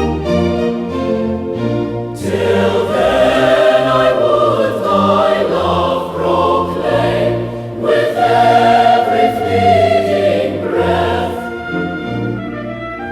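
Choir singing a slow hymn over orchestral accompaniment. Strings carry the first couple of seconds before the voices come in.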